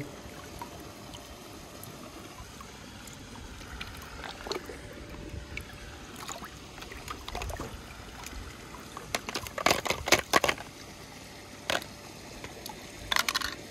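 Faint steady hiss with scattered sharp clicks and knocks: a quick run of them about ten seconds in and a few more near the end.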